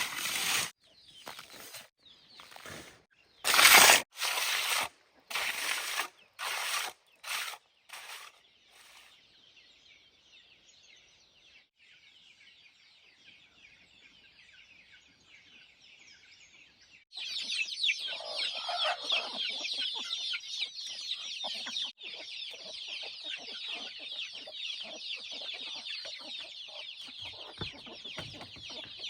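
Chickens clucking over a steady high-pitched hiss that grows louder about halfway through, after a run of sharp knocks in the first few seconds.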